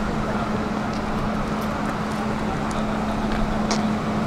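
Steady road traffic noise with a constant low hum and a few light ticks.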